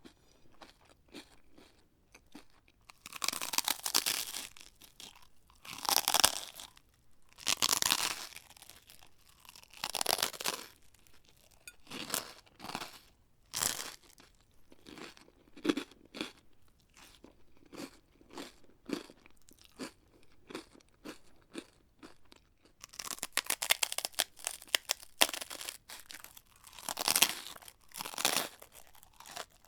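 A person biting and chewing crunchy food such as crisps or crackers: several loud crunching bites a couple of seconds apart, then a stretch of softer chewing, then a fresh run of dense crunching near the end.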